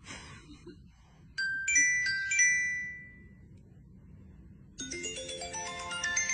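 Phone ringtone: a few bell-like chime notes ring out and fade about a second and a half in, and near the end a fast melodic ringtone tune starts up.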